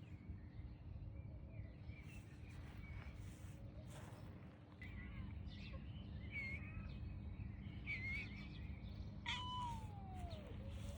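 Cat meowing several times in short high calls, then one longer meow near the end that falls in pitch, over a steady low hum.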